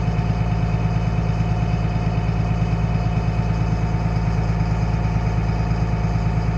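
An M1078 LMTV military truck's diesel engine idling steadily, heard from inside the cab.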